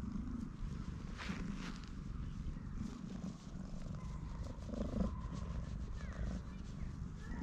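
Stray cat purring loudly right at the microphone while it is stroked, a steady fast rumble, with a few soft brushing sounds from the hand rubbing its fur.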